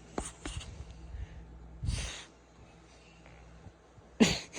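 French bulldog snoring in its sleep: short noisy breaths near the start, a longer one about two seconds in, and a loud, abrupt one near the end.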